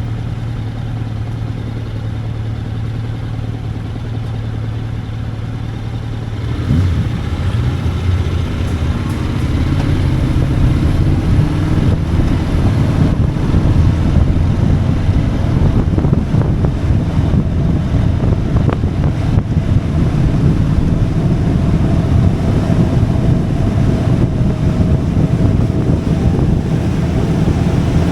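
Motorcycle engine idling steadily, then revving and pulling away about six or seven seconds in. It runs louder under way, its pitch rising as it gathers speed.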